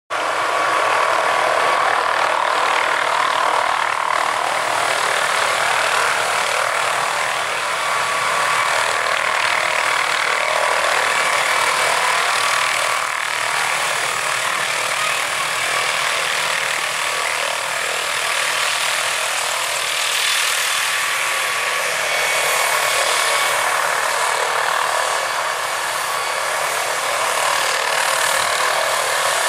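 MD-520N NOTAR helicopter's single turboshaft engine and rotor running steadily during a landing: a continuous loud whining, buzzing noise with a few steady high tones over it.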